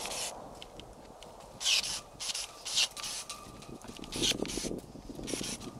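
Pruning shears snipping through grapevine canes in a string of short, quick cuts, with the woody canes rustling between the cuts.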